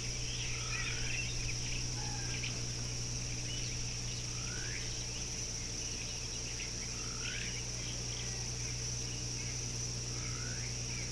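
Outdoor ambience: a steady high-pitched insect drone, a bird giving a short rising whistled note about every three seconds, and a low steady hum underneath.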